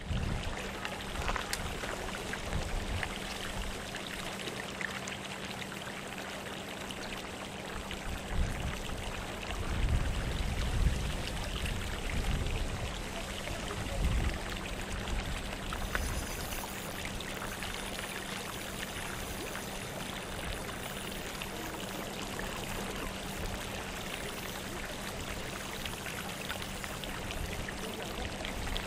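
A steady rush of running water at the edge of a pond. A few low rumbles, like wind on the microphone, come through about a third of the way in.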